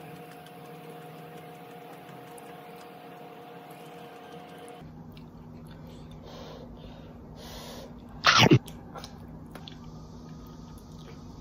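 A person sneezes once, short and loud, about eight seconds in, over a steady low room hum.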